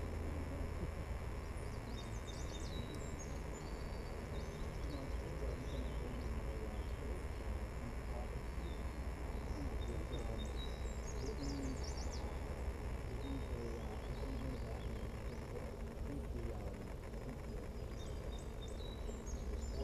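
Open-air ambience: steady low wind noise on the microphone, with high bird chirps in short runs a couple of seconds in, around the middle, and near the end.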